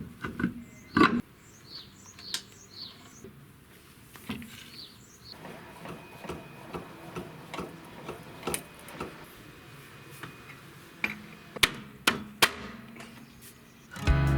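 Sharp metallic knocks and clinks of hand tools, such as a lug wrench, being handled and set down during a wheel change. The loudest knock is about a second in and three more come close together near the end. Birds chirp in the first few seconds.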